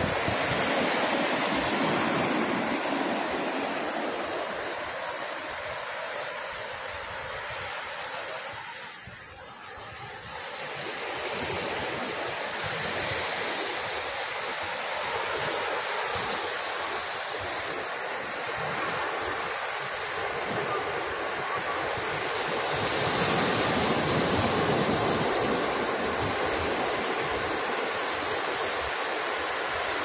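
Small waves breaking and washing up a dark-sand beach: a steady rushing surf that swells and eases, with a brief lull about nine seconds in.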